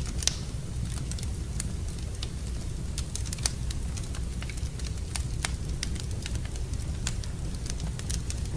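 Wood fire in a fireplace crackling, with sharp irregular pops over a steady low rumble. The loudest pops come near the start and about three and a half seconds in.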